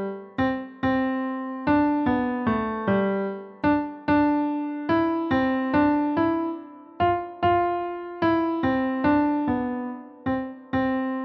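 Yamaha digital piano playing a simple two-handed beginner melody, struck notes about two a second, each fading away. Every few seconds the sound briefly drops where the player holds a quarter rest.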